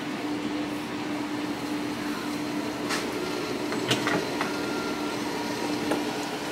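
Steady low hum of a running kitchen appliance, with a few light clicks and knocks about three to four and a half seconds in.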